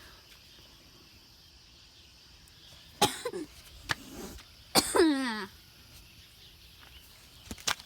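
A person coughing twice, about three seconds in and again nearly two seconds later, the second cough louder and dropping in pitch. A few faint clicks fall between and after.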